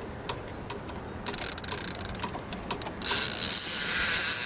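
Fishing reel clicking in irregular sharp ticks, with a large sturgeon on the line. About three seconds in, a loud steady rushing hiss comes in over it.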